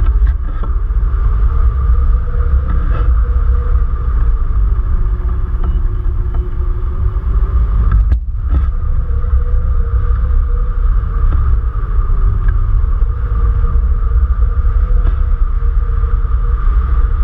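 Airflow of a hang glider in flight buffeting the wing-mounted camera's microphone: loud, steady low rumbling wind noise with a steady high hum above it, dipping briefly about eight seconds in.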